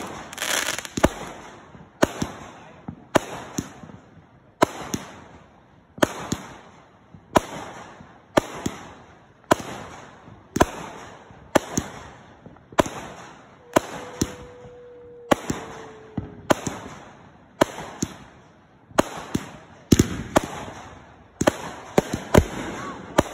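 Consumer fireworks cake firing a steady volley of aerial shots, a sharp report about once a second, each trailing off into a fading hiss as its gold burst opens. The shots come faster and closer together near the end.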